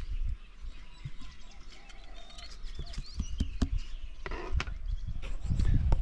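Small birds chirping faintly in the background over a low rumble of wind on the microphone, with a few light taps and clicks.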